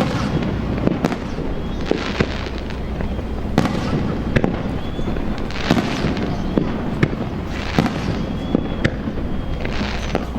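Aerial fireworks going off in quick succession: sharp bangs about once a second, mixed with several stretches of crackling from bursting shells.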